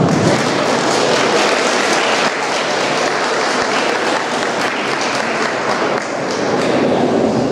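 Audience applauding steadily, easing slightly about six seconds in.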